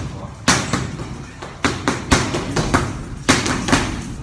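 Boxing gloves striking focus mitts in pad work: sharp slaps coming in quick combinations of two or three punches, with short gaps between the combinations.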